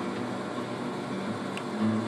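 Small wood lathe's motor and belt drive running steadily, the spindle turning at about 680 rpm on a homemade larger pulley. Its hum changes slightly near the end.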